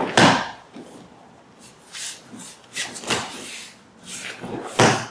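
A body hitting the dojo mat in an aikido breakfall just after the start, then shuffling barefoot steps on the mat and further thumps, the last strong one near the end.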